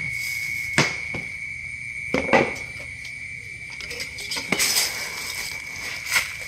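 A stainless steel bowl knocking and scraping against a plastic bucket while scooping coarse salt, the salt rustling as it is dug. A handful of separate clinks and knocks, the loudest about two seconds in.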